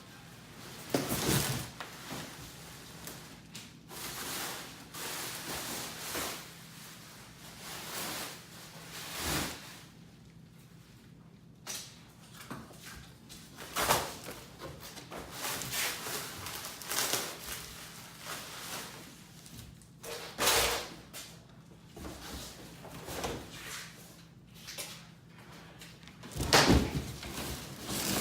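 Heavy steel winch bumper being wrestled out of its shipping box: a string of separate knocks, thumps and scrapes against the box, with the loudest thumps near the end.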